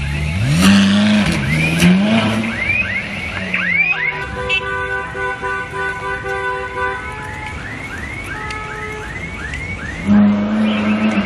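A Ferrari engine is revved hard, with sharp rises and falls in pitch at the start and again near the end. Between the revs, car alarms set off by the noise sound together: a fast repeating rising chirp and, in the middle, a steady multi-tone wail that stops about seven seconds in.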